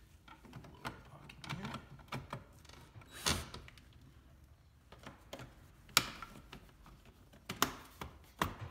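Hands and a screwdriver working the plastic centre-console trim of a car interior: scattered clicks, taps and knocks, the sharpest about three and six seconds in and again near the end.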